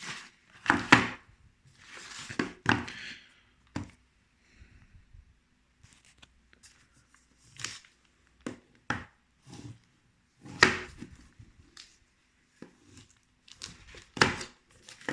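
Handling of a small cardboard box wrapped in plastic: scattered rustles and light knocks, with a few sharper knocks about a second in, near the middle and near the end.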